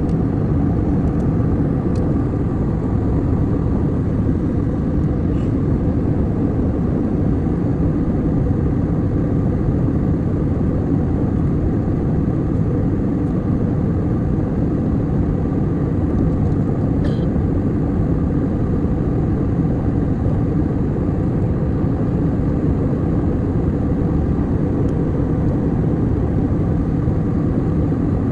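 Steady drone of an airliner in flight heard from inside the cabin: even engine and airflow noise, heavy in the low end and unchanging, with a couple of faint ticks.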